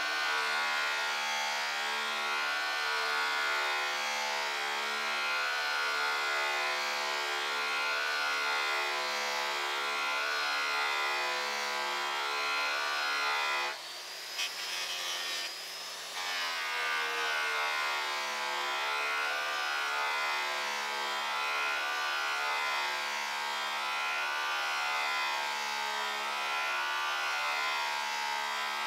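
Electric rotary polisher with an airway buffing wheel running against aluminium trailer skin, its motor whine wavering as the wheel is worked back and forth under load. About halfway through the sound drops and shifts for a couple of seconds before the steady polishing resumes.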